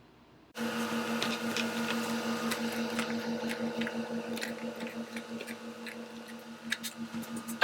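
A steady machine hum with a low tone starts abruptly about half a second in. Light clicks and taps of cheese and plastic containers being handled run over it, with a louder tap near the end.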